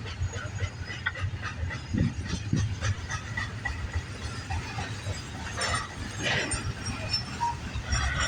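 Intermodal freight train's container cars rolling past: a steady low rumble of wheels on rail, with many short clicks and clacks as the wheels cross the rail joints.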